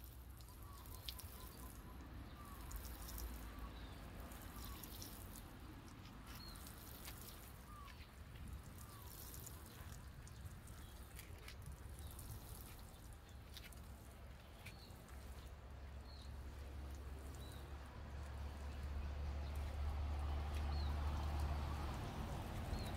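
Water sprinkling from the rose of a plastic watering can onto garden soil and plants, a steady pattering spray that grows louder in the last few seconds.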